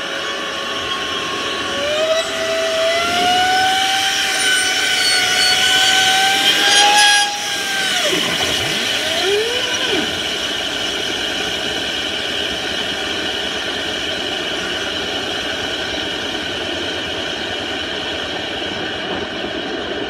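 Dryer-vent cleaning equipment running: a motor with a steady rushing noise, its pitch climbing over the first few seconds, then dropping sharply about eight seconds in and wavering before it settles.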